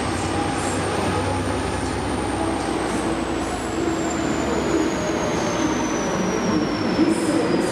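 Train running through the station: a steady rumble of the locomotive and wheels, with a thin high whine that slowly falls in pitch from about two seconds in.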